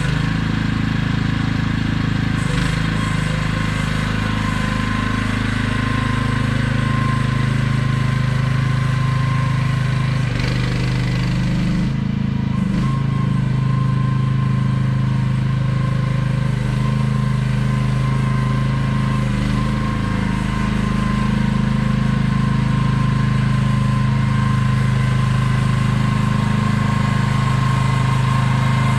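AGT QH12R mini excavator's engine running steadily under the operator's control, with a thin steady whine above the engine note. The engine note shifts briefly about ten to twelve seconds in, then settles again.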